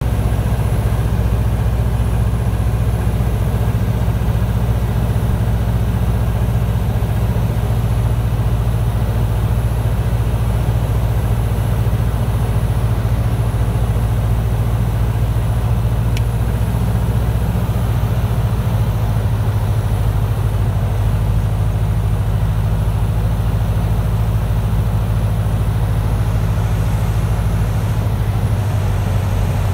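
Single-engine light aircraft's propeller engine droning steadily, heard in the cockpit on approach to land. The engine note shifts lower about two-thirds through and again near the end.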